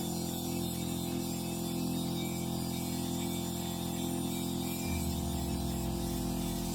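Background music: a sape remix with a steady, repeating low accompaniment.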